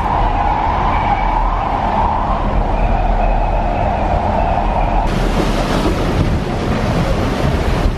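Steady drone of a passenger ferry's engines heard from the open deck. About five seconds in it gives way to a broader rushing noise as the ferry comes alongside the landing stage.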